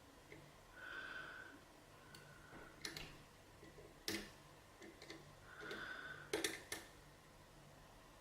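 Faint small metallic clicks of a lock pick and tension wrench working the pins of a KIK lock cylinder: a handful of sharp clicks in the middle and second half, two of them close together near the end. Two short high squeaks come about a second in and again near six seconds.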